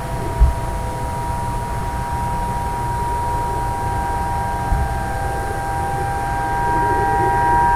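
Distant outdoor warning sirens holding a steady alert tone: several sirens at different pitches blend together, and a higher one joins about halfway through. A low wind rumble on the microphone runs underneath, with two short low thumps, one near the start and one around the middle.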